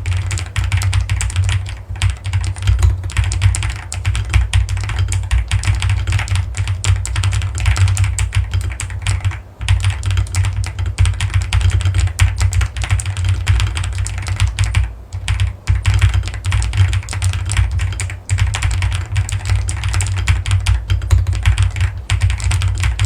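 Fast, continuous typing on a mechanical keyboard with keycaps fitted: a dense run of key clacks, with short breaks about nine, fifteen and eighteen seconds in.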